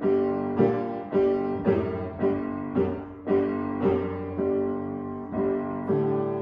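Piano music: chords struck in an even beat about twice a second, each one fading before the next.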